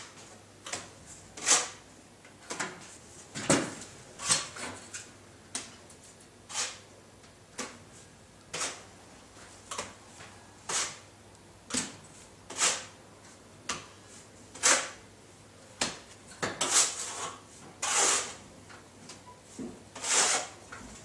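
Plasterer's trowel slapping dot-and-dab plasterboard adhesive onto a blockwork wall and scraping it along to lay a solid band at the top. A series of short slaps and scrapes, about one every second, with a few longer, louder scrapes near the end.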